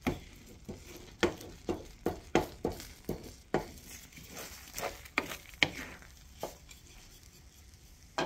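Wooden spoon stirring eggs scrambled with vegetables in a nonstick frying pan, knocking and scraping against the pan about once or twice a second, over a faint sizzle. The knocks stop about six and a half seconds in, leaving only the sizzle.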